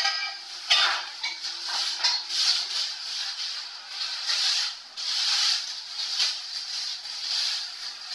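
Cardboard packaging and a metal furniture frame being handled: repeated rustling and scraping, with a few knocks in the first two seconds.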